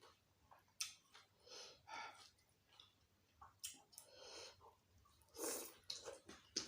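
Close-miked eating sounds: a few sharp wet mouth clicks and smacks, with breathy exhales in between, after a mouthful of spicy sambal.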